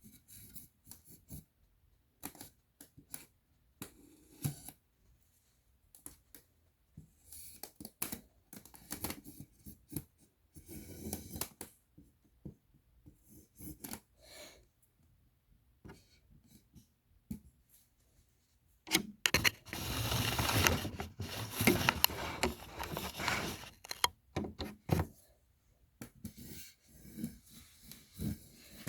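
Round cake box and its plastic lid being handled at close range: scattered light taps, clicks and scratches, then a few seconds of dense, louder rubbing and crinkling of the plastic about two-thirds of the way through.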